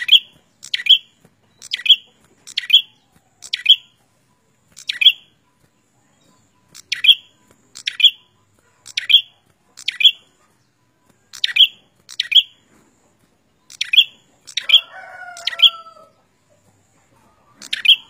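A caged red-headed prenjak (a tailorbird) singing a loud, sharp note over and over, roughly one a second with a few longer gaps. Each note is a quick downward-sweeping chip. About fifteen seconds in, a lower two-tone drawn-out call overlaps for a second or so.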